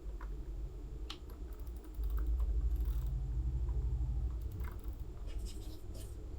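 Scattered light key clicks, like a shortcut keyboard being pressed while drawing, over a steady low hum that gets louder about two seconds in.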